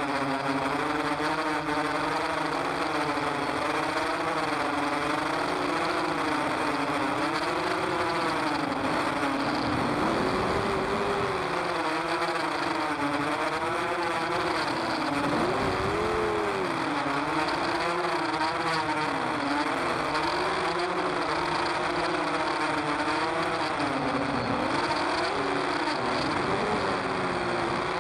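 Electric motors and propellers of an FPV tilt drone in flight, heard from on board: a whine whose pitch rises and falls continuously with the throttle, with bigger swells about ten and sixteen seconds in.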